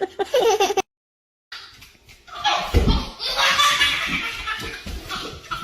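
Voices that stop abruptly, a brief dead silence, then a person laughing hard for a couple of seconds.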